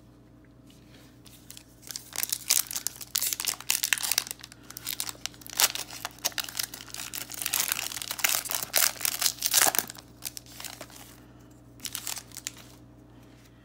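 Plastic wrapper of a Topps Holiday baseball card pack crinkling and tearing as it is ripped open by hand, followed by a short rustle near the end.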